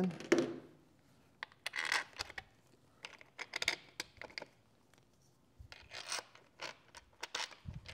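Small metal clicks, scrapes and rubbing in scattered clusters as two long chrome bolts are handled and fitted to mount a motorcycle's engine lighting panel.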